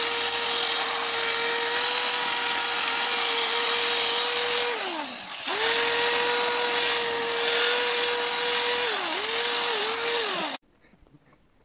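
Cordless drill spinning an abrasive disc against birch wood: a steady motor whine over the hiss of sanding. The whine falls in pitch and stops about five seconds in, starts again at once, and dips briefly twice near nine seconds. It then winds down and cuts off abruptly near the end.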